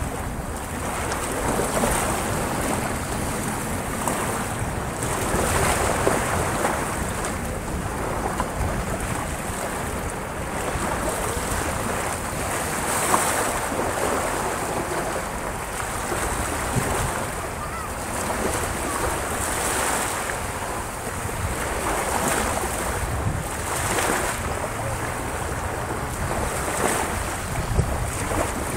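Small waves breaking and washing up a beach, the surf rising and falling every couple of seconds, with wind rumbling on the microphone.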